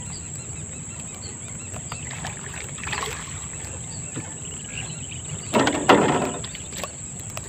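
Water splashing in two short bursts about five and a half seconds in, as a fish shot with a line-tied airgun dart is hauled in on a hand line. A steady high insect hum runs underneath.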